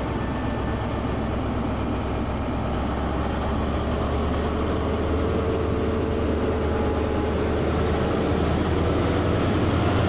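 Class 43 HST power car's diesel engine running under power as the train pulls away: a steady low drone that builds slightly, with a faint whine joining about halfway through.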